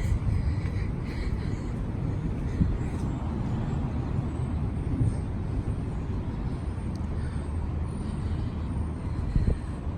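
Outdoor street background: a steady low rumble like traffic, with a few brief knocks.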